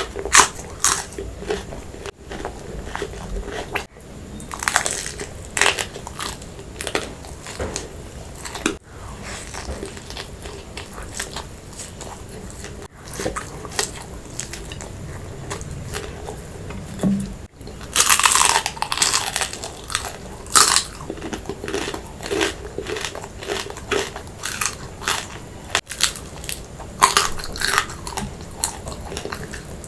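Close-miked eating: steady chewing with crisp crunching bites, as of fried fish or crab shell. The crunches come in bunches, loudest about two-thirds of the way through and again near the end.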